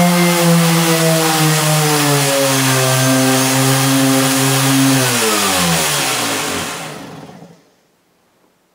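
Ridgid 5-inch random orbit sander's motor running with a steady hum, then switched off about five seconds in and winding down to a stop, its pitch falling as it slows.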